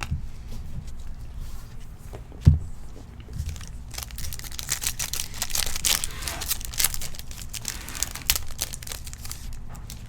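A trading-card pack wrapper being torn open and crinkled, densest from about four to seven and a half seconds in, after a single dull thump about two and a half seconds in.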